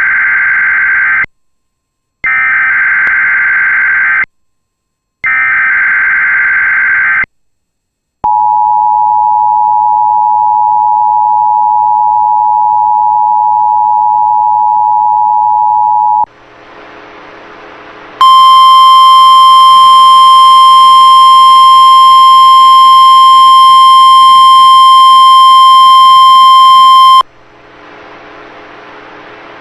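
Emergency Alert System test tornado warning tones: three short screeching bursts of SAME header data with a second's gap between each, then the steady two-tone attention signal for about eight seconds. After a couple of seconds of radio hiss comes the loud, steady NOAA Weather Radio warning alarm tone, held for about nine seconds, then the hiss returns.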